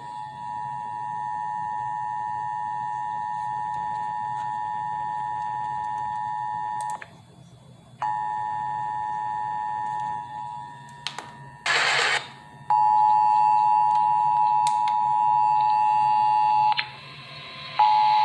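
Emergency Alert System two-tone attention signal (853 Hz and 960 Hz sounded together) from an FM radio broadcast, held steady and breaking off briefly a few times, with a short burst of radio static about twelve seconds in. It is the tone alert that opens the National Periodic Test message.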